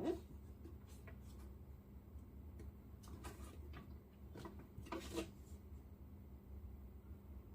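Faint, scattered clicks and taps of a cardboard model-car box being handled and turned, over a low steady hum.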